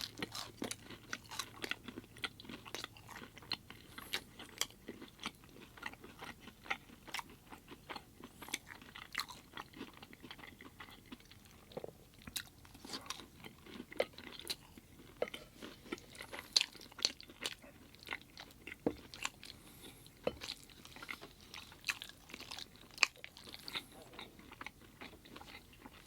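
Close-up chewing and mouth sounds of a person eating vegan chicken nuggets and mac and cheese: a steady run of irregular short wet smacks, clicks and crunches, some louder bites standing out.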